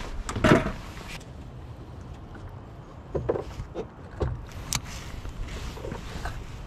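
Scattered knocks and clicks of handling on a fishing boat over a low steady rumble, the loudest knock about half a second in and a sharp click a little past the middle.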